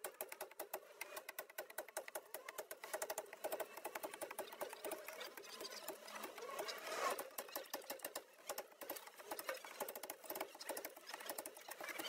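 Rapid, irregular clicking and scratching, many small clicks a second.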